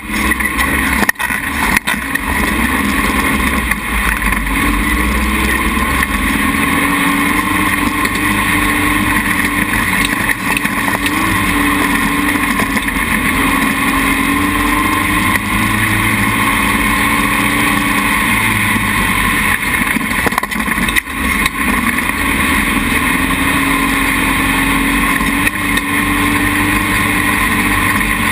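Dune buggy engine running steadily over sand, its pitch rising and falling with the throttle, with a few brief dips in level.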